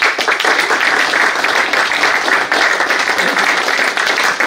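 Audience applauding steadily and loudly after a lecture.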